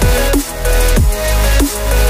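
Background music: an electronic beat with heavy sub-bass and a repeating pattern, with a sharp falling pitch sweep about a second in.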